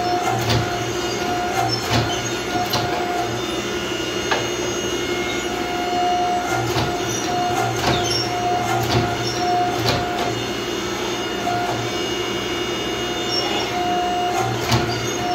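Power hammer running with a steady mechanical hum and an on-and-off whine, striking a glowing steel axe head with separate blows at irregular intervals, about a dozen in all.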